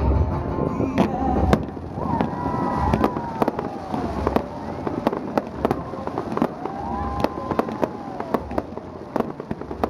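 Fireworks display going off: many sharp bangs and crackles in quick, irregular succession, thinning slightly toward the end.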